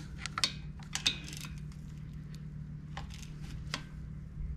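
A hand tool clicking on metal as the two loose ignition-pickup bolts on a pit bike's engine are tightened: a few scattered sharp metallic clicks over a steady low hum.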